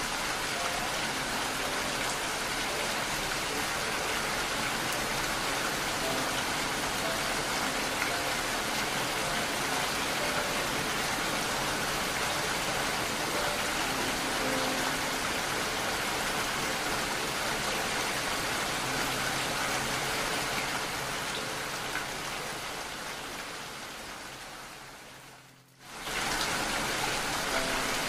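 Steady rain. It fades down over a few seconds near the end, almost to silence, then cuts back in abruptly at full level.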